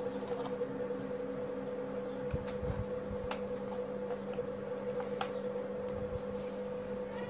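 Faint scattered clicks and scrapes of a small screwdriver driving screws into a computer keyboard's plastic back case, over a steady low hum.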